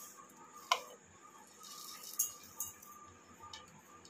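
A few light clicks and clinks as whole spices (black peppercorns and cumin seeds) are dropped by hand into a small mixer-grinder jar: one sharper click about a second in, then a few fainter ticks, over a faint steady hum.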